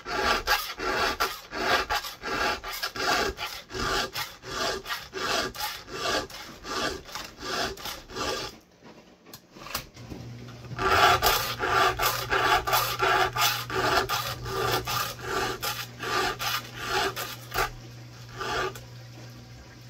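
Round chainsaw file rasping across the cutters of a saw chain in quick, repeated push strokes, sharpening the teeth by hand. The strokes stop for a second or so about halfway, then start again and thin out near the end.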